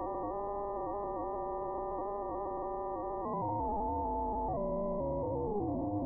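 Demodulated audio from a software-defined radio receiver in double-sideband mode, tuned near 16 kHz: a buzzy tone with many overtones and a slight warble. About three seconds in, and again near the end, it steps and slides down in pitch as the tuning is moved up. The uploader presents the signal as thermoacoustic sound produced in the brain by pulsed electromagnetic waves.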